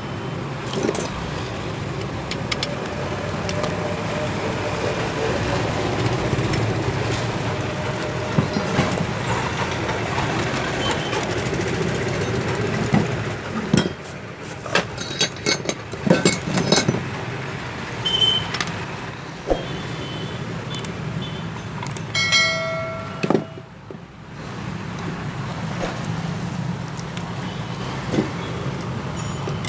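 Steady background noise, like road traffic, under irregular clicks and knocks as ceiling fan parts and screws are handled during reassembly. The knocks are thickest around the middle, and a short pitched tone sounds about two-thirds of the way in.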